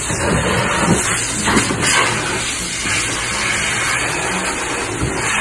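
Hair dryer blowing steadily, with a low motor hum under the rush of air.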